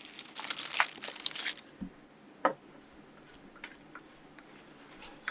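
Dried oregano being crumbled and sprinkled into the pan: a short spell of dry rustling and crinkling, followed by a single sharp tap about two and a half seconds in.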